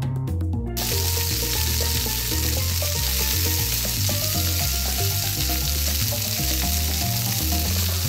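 Frying sizzle sound effect, a dense steady hiss that starts about a second in, over background music with a stepping bass line.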